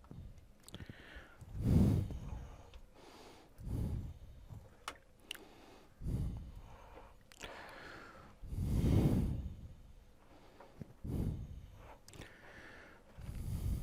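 A man breathing close to the microphone, a slow breath every two seconds or so, with a few light clicks and taps as a flat-screen TV is taken apart by hand.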